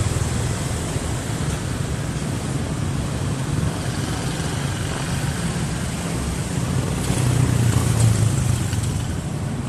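Steady wind and road noise from riding along on an e-bike, swelling louder for a moment about seven seconds in.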